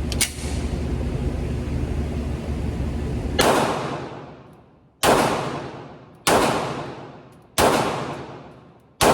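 Glock 19 Gen 5 9mm pistol fired five times in slow aimed shots about a second and a half apart, each shot followed by a long echoing tail.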